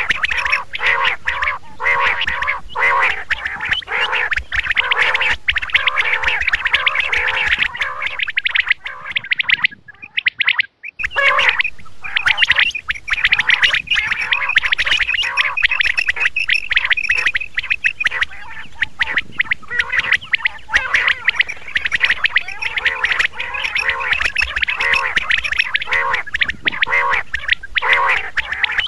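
Quails calling over and over in a dense, rapid stream of calls, with a break of about a second and a half near ten seconds in.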